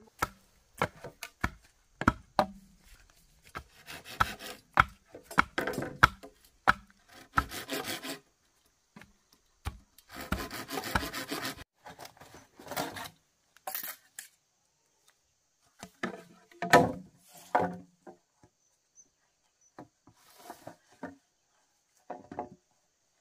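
Bamboo poles being cut and worked with a hand blade. There are stretches of rasping, saw-like strokes across the wood, mixed with sharp wooden knocks and taps.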